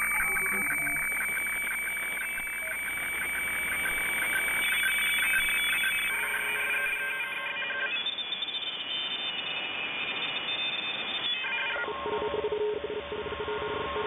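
Shortwave radio receiver audio: a steady high tone with a fast pulsing in the first half, then other tones keying on and off over static, the signal changing several times.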